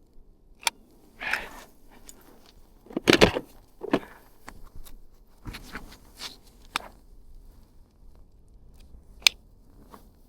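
Close-up handling noises: scattered clicks, rustles and scrapes. A sharp click comes about a second in and another near the end, and the loudest scraping knocks come around three to four seconds in.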